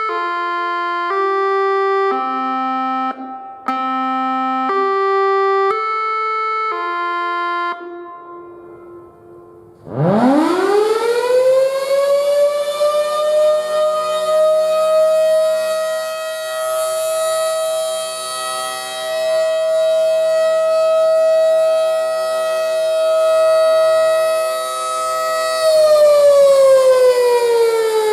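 An electronic chime plays eight notes, about one a second. Then, about ten seconds in, a Federal Signal mechanical outdoor warning siren winds up from a low growl to a steady high tone and holds it. Near the end its pitch sags and begins rising again.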